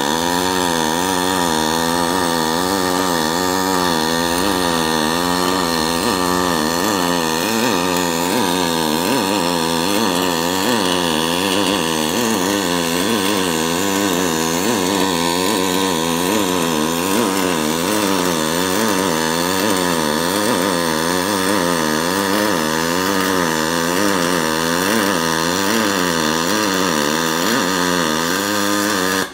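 Pulsed MIG welding arc on 5052 aluminum plate, fed with 0.047 in 5356 wire from a Miller XMT304 with an Optima single-pulse box. It makes a loud, steady buzz whose pitch wavers up and down about twice a second, and it cuts off suddenly at the very end.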